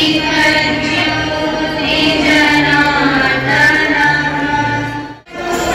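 Music with a singing voice over a stepping bass line, briefly cutting out about five seconds in before resuming.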